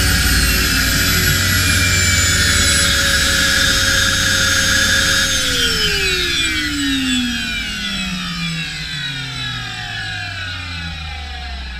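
JetCat PHT3 model helicopter turbine whining, nearly steady at first. About five seconds in, the whole whine falls steeply in pitch and grows quieter as the turbine spools down at shutdown.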